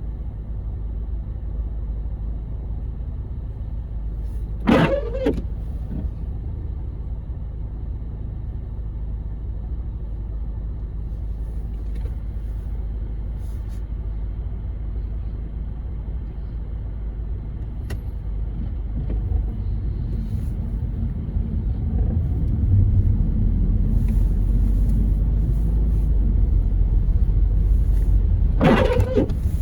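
Steady low rumble of a car's engine and tyres heard from inside the cabin while driving on a snowy road, growing louder about two-thirds of the way through. Two brief sharp sounds break through, one about five seconds in and one near the end.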